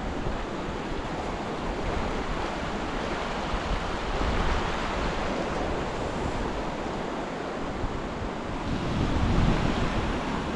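Floodwater of a swollen river rushing steadily, with wind buffeting the microphone, strongest near the end.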